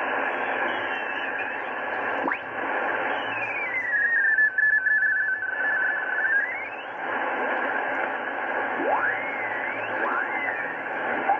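Speaker audio of a Collins 851S-1 HF receiver being tuned across the 20-metre band in sideband mode. Steady band-noise hiss is crossed by thin whistling tones that slide in pitch as the tuning knob turns. One whistle drops and climbs back a few seconds in, and others rise near the end.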